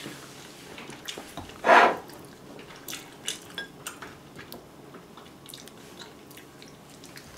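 Metal chopsticks clicking and scraping against a bowl as spicy braised chicken is picked out and eaten, with small chewing sounds. A short, loud rushing noise just under two seconds in.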